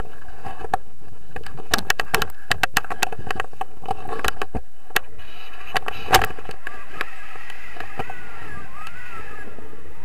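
Tandem paraglider launch heard through the camera's microphone: a run of sharp knocks and thumps as the pair run across the grass, then a steadier wind rush once the wing lifts them off, about halfway through.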